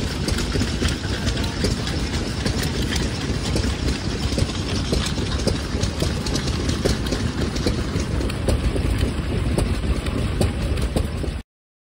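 Small vintage stationary engine running steadily, belt-driving a wooden barrel churn through pulleys, with a rapid irregular clatter. The sound cuts off suddenly near the end.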